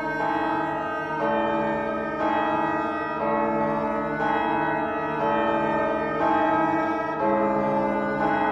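Background music of sustained organ-like keyboard chords, changing chord about once a second.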